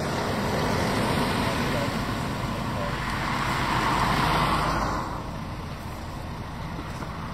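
A small van and a car driving past close by, their engine and tyre noise building to its loudest about four seconds in and then dropping away sharply.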